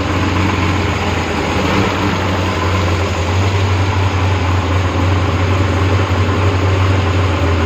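Freshly rebuilt Porsche 911 3.2 Carrera air-cooled flat-six running steadily on an engine test stand, its engine speed holding even with no revving.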